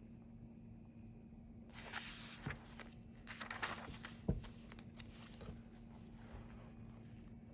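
Paper and card pages of a handmade junk journal rustling as they are turned by hand, in two spells of rustling, with a sharp tap a little past halfway.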